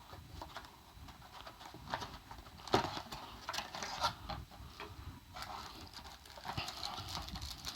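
Unboxing handling noise: packaging and small camera accessories being rustled and unwrapped, with scattered light clicks and taps.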